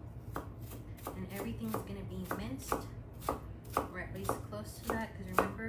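Knife chopping on a cutting board in a steady rhythm, about three cuts a second, starting about half a second in.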